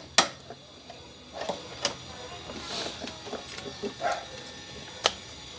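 Hammer striking metal on the scooter's steering-head nut: one sharp strike just after the start and another about five seconds in, with lighter metal tool clinks and knocks between.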